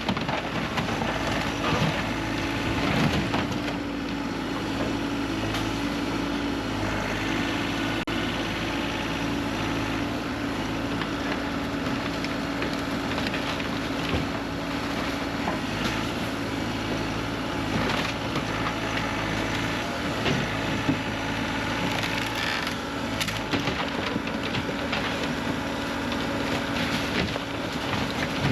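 Wooden shed being crushed and torn apart by heavy equipment: wood cracking and splintering again and again over the machine's steadily running engine.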